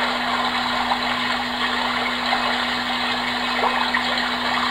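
Homedics SoundSpa Rejuvenate sound machine playing its 'Brook' setting: a steady recorded sound of running stream water, with a steady low hum underneath.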